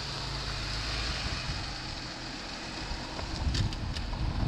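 Off-road vehicle engine running at low speed, with wind on the microphone and a few short clicks about three and a half seconds in.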